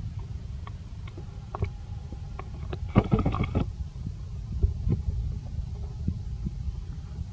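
A long-tailed macaque gives one short, high squeal about three seconds in, over a low steady rumble with scattered small clicks.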